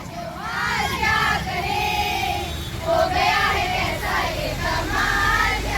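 A group of children singing together in chorus, with drawn-out notes, over low traffic rumble.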